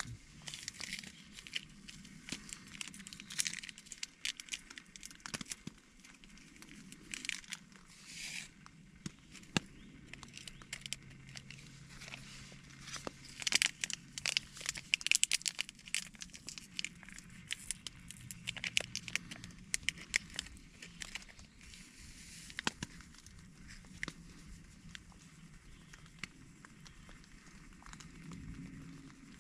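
Foil coffee sachet crinkling and tearing as it is handled and opened: a string of short crackly rustles, busiest around the middle.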